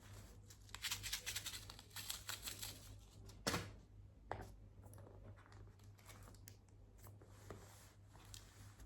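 Packaging being handled: a dense rustle of crinkling and tearing for a couple of seconds, then a sharp click about three and a half seconds in and scattered small clicks and rustles, over a low steady hum.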